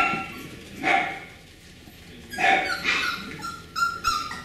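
Beagle puppy barking: several short, high barks roughly a second apart.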